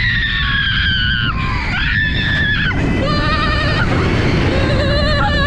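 A girl screaming on a dive roller coaster's vertical drop: two long, high screams that fall in pitch, then wavering, shaky screams, over a steady low rushing noise.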